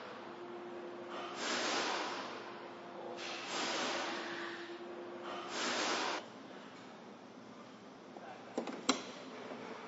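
Four bursts of hiss over a faint steady tone, then near the end two sharp clicks as the charging connector of a wall-mounted EV charging station is seated in its holster.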